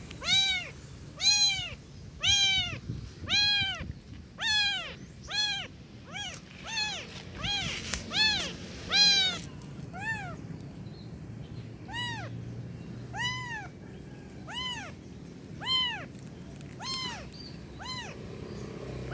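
Young kitten meowing over and over in high, crying calls. Each call rises and falls in pitch, at about one a second, spacing out a little in the second half.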